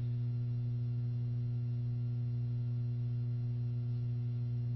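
Steady low electrical hum with a few fainter, higher overtones, unchanging throughout.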